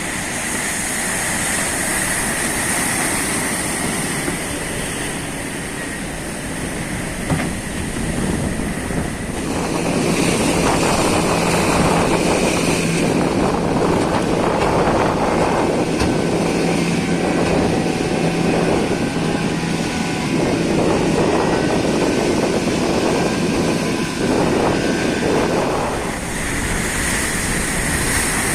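Small fishing boat under way in rough sea and strong wind: its engine runs steadily under a rushing noise of wind and water. The rushing grows louder from about ten seconds in.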